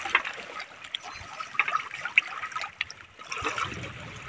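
Shallow seawater trickling and lapping among shoreline rocks, with a few brief sharp ticks.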